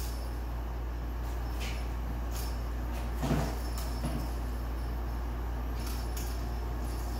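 Kittens playing on a hard floor: a soft thump about three seconds in and a few light taps, over a steady low hum.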